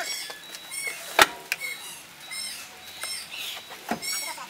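A bird calling over and over with short, high chirps, about two a second. A single sharp knock comes a little over a second in, with a few lighter knocks after it, from the large cardboard-wrapped furniture being handled in the back of an SUV.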